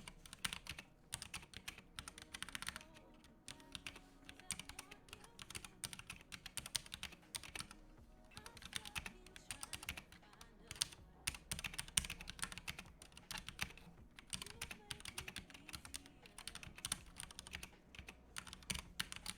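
Continuous fast typing on a Ducky One 2 Mini mechanical keyboard with Cherry MX Red linear switches: a dense, fairly quiet run of key clicks and clacks.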